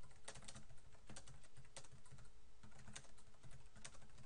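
Typing on a computer keyboard: a steady run of uneven key clicks.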